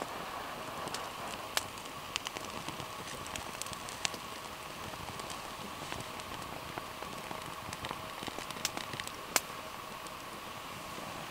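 Small wood fire crackling as flames from a burning splint catch in the slots of a Swedish fire torch (an upright log split into sections): irregular sharp pops and snaps over a steady hiss.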